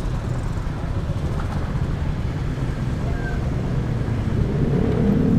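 Motor scooter's engine running at low riding speed, with a steady rumble and wind on the microphone; near the end the engine picks up and its note rises.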